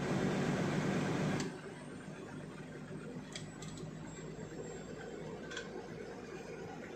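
Inside a moving lorry's cab: steady engine and road noise, louder for the first second and a half and then settling lower, with a few light clicks from the cab.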